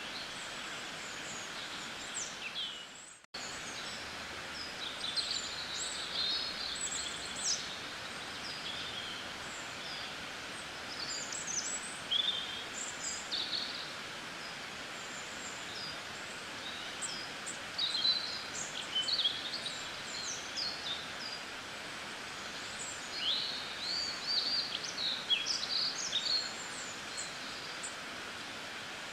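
Many small birds chirping and calling over a steady background hiss, with a brief dropout about three seconds in.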